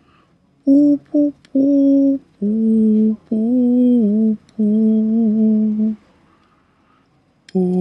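A person humming a slow tune in long held notes, with short breaks between them. The humming stops about six seconds in and starts again near the end.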